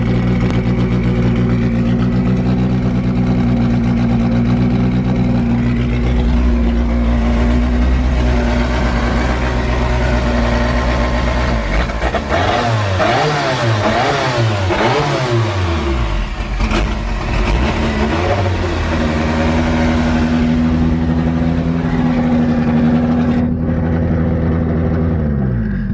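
Forged Toyota 5E-FE 1.5-litre four-cylinder with big camshafts idling on its first start-up, then revved in several quick rising-and-falling blips about halfway through, settling back to idle, and shut off near the end as the pitch drops away.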